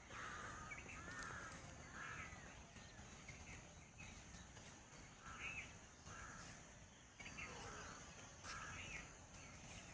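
Crows cawing faintly in the distance, a string of short separate caws spread through the quiet.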